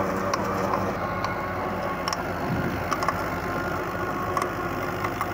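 Fiat 640 tractor's diesel engine running steadily while it drives a rotavator churning through the soil, with scattered sharp ticks.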